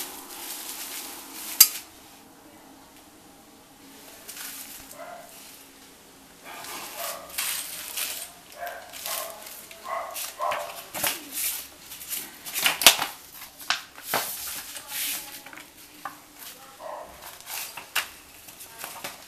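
Plastic bags and bubble wrap crinkling as they are handled, with sharp clicks and clinks of small metal parts. One sharp click comes about a second and a half in, then a quieter spell, and from about six seconds on there is a busy run of crinkles and clicks.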